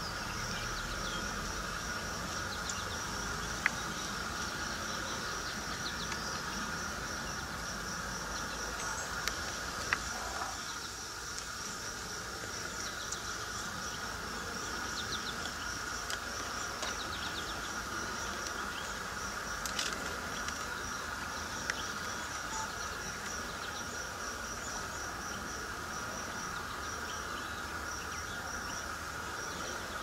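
Steady insect chorus, cricket-like: a high, rapidly pulsing trill over a continuous lower buzz, with a few faint bird chirps and sharp ticks scattered through.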